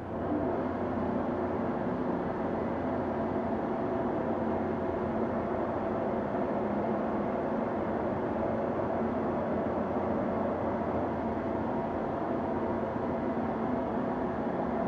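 Okamoto HMC-3000 horizontal machining center running under power: a steady mechanical hum with several constant tones. It comes up suddenly at the start and then holds even.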